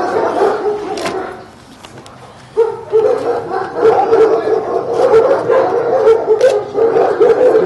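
Eight-week-old puppies whining and yelping. After a brief lull the sound starts again suddenly about two and a half seconds in and keeps going as a steady, wavering high whine.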